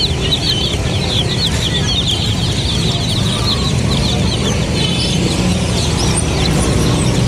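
A flock of young chicks peeping nonstop, many short, high, downward-sliding cheeps overlapping, over a steady low rumble.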